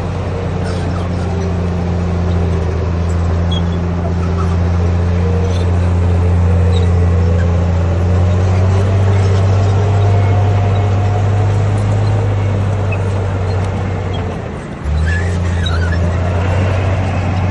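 Bulldozer's heavy diesel engine running steadily with a deep hum. The sound dips for a moment about fifteen seconds in, then comes back abruptly.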